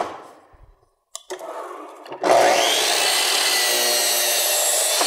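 A knock, then about two seconds in an electric miter saw's motor starts with a rising whine and runs steady while its blade cuts through a long board.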